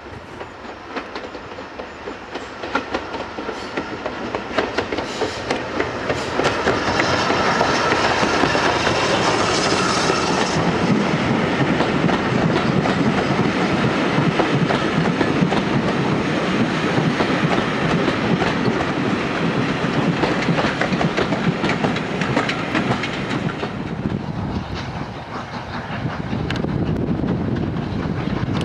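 A steam-hauled passenger train passing close by on a curve. The sound builds as it nears, with a high hiss from about seven to ten seconds in as the front of the train goes by, then the coaches' wheels click and clatter over the rail joints.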